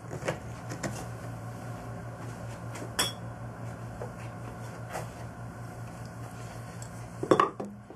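Steady low hum in the background, with scattered light knocks and clicks of things being handled on a wooden workbench: one sharp click about three seconds in and a short run of knocks near the end.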